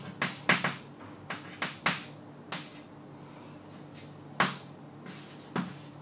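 Chalk writing on a chalkboard: a dozen or so short, sharp taps and scratches of the chalk, unevenly spaced as each letter is formed, the loudest about four and a half seconds in.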